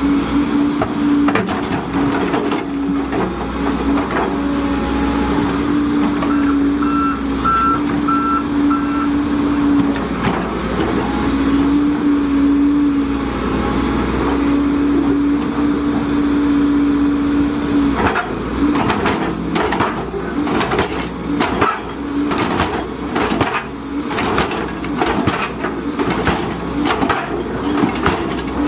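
Volvo EC210DL crawler excavator working, its engine and hydraulics running with a steady hum that breaks off and resumes. A short run of even beeps from a warning alarm comes about a quarter of the way in. From about two-thirds through, repeated metallic clanks and knocks take over.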